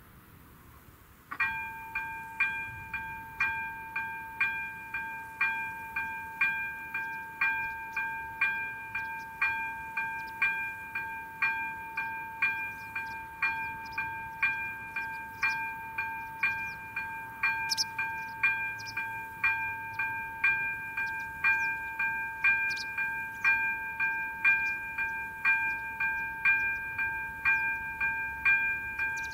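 Electronic level-crossing bell (ZV-02) switches on about a second and a half in and rings evenly, about two strokes a second over a continuous steady tone: the crossing's warning that a train is approaching.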